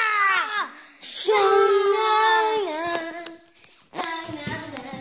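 A child's voice making drawn-out wordless vocal sounds: a short falling cry, then a long held note that drops in pitch at its end, then quieter shorter voice sounds near the end.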